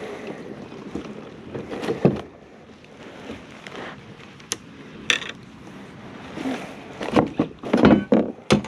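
Knocks and clatter from a freshly caught fish being handled, a few scattered ones and then a dense run near the end, over light wind noise on the microphone.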